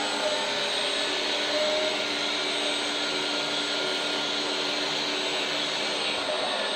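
Electric hydraulic pump of a 1/14-scale RC hydraulic excavator (LESU Komatsu PC360) running with a steady whirring whine, its pitch shifting briefly about a second and a half in.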